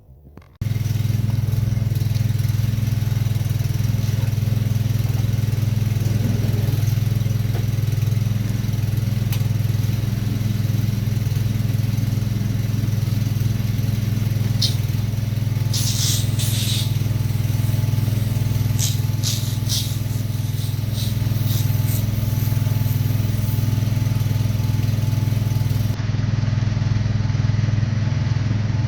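A motor running steadily with a loud, even low drone that starts about half a second in. Short high hissing bursts come several times around the middle.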